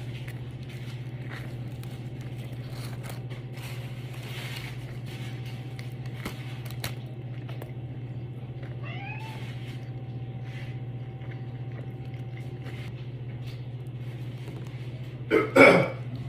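An animal calling: a faint rising call about nine seconds in and a loud call near the end, over a steady low hum.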